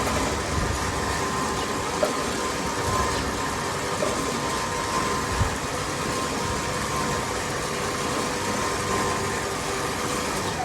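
Craftsman T1600 lawn tractor engine running steadily at a constant speed. The engine has a blown head and its valve cover is off.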